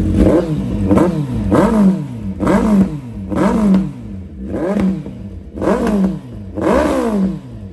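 Suzuki Hayabusa Gen3's 1340 cc inline-four, breathing through a newly fitted SC-Project aftermarket exhaust, revved in about eight quick throttle blips. Each blip rises sharply and falls back toward idle.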